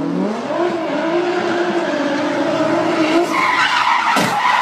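A car's engine revving up and held at high revs while its tyres squeal in a sideways drift, the squeal growing louder and higher about three seconds in. A sharp bang near the end.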